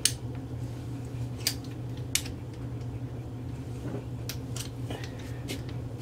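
About half a dozen short, sharp clicks, spaced irregularly a second or so apart, from a freshly serviced Bontrager Drop Line dropper post being handled and cycled to check that it works.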